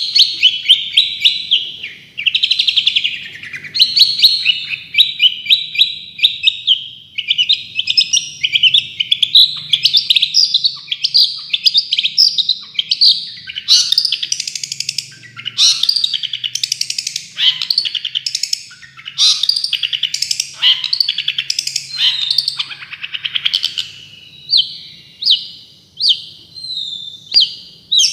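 Songbird singing a continuous run of rapid, high chattering bursts in the fast 'tembakan' style used as tutor song for long-tailed shrikes.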